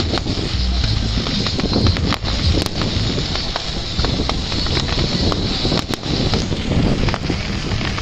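Fireworks going off: a dense run of sharp pops and crackles over a constant low rumble.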